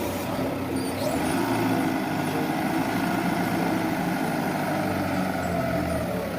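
A motor running steadily: a low hum with an even hiss over it.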